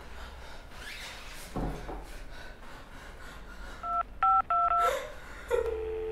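Phone keypad tones: three quick two-note beeps as a number is dialled, then a steady tone on the line about a second later.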